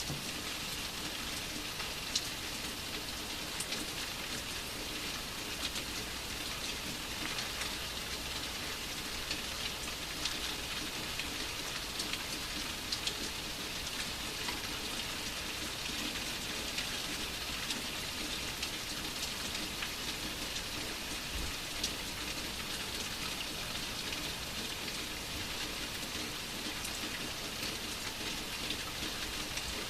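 Steady rain: an even hiss of falling rain with many small, scattered drop taps.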